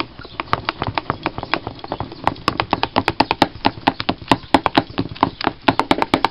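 Wire whisk beating pancake batter in a clear measuring cup, its wires tapping and clicking against the cup's sides in a fast, uneven run of several clicks a second that grows busier partway through.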